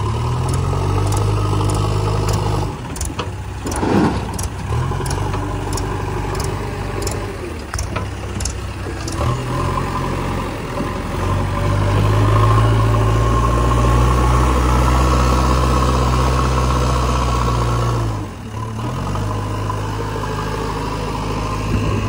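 JCB 3DX backhoe loader's diesel engine running and changing revs as the machine drives and works its loader bucket, running hardest in the second half and easing off for a moment near the end before picking up again. A single knock about four seconds in.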